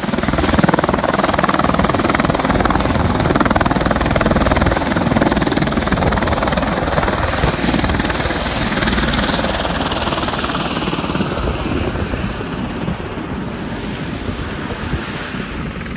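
Tour helicopter running on the ground with its rotor turning: a steady heavy rotor and engine noise with a thin high turbine whine that slides down in pitch about halfway through.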